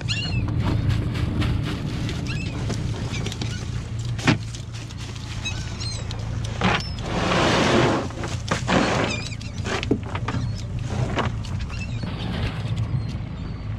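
A cast net being shaken out over a boat deck: the wet net rustles and drips, and the lead line and live shrimp patter, click and flip on the deck, with a louder splashy stretch about halfway through. A steady low hum runs underneath.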